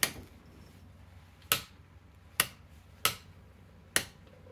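A series of sharp, short clicks, five in all, at uneven gaps of about a second.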